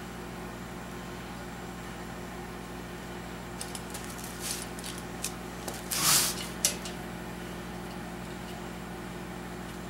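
Steady hum with a few light metallic clicks and a short clatter about six seconds in, as intake manifold bolts are handled and set into place on a V8.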